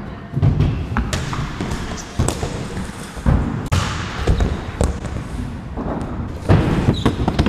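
Stunt scooter wheels rolling on skatepark ramps, with repeated sharp clacks and heavier thuds of the scooter and rider hitting the surface, including a crash to the ground.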